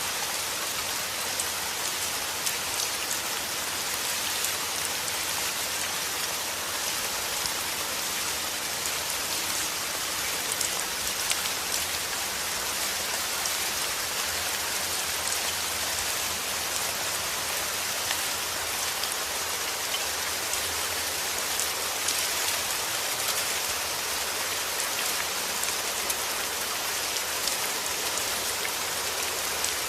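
Steady heavy rain: a dense, even hiss of drops on a surface, with fine drop ticks throughout.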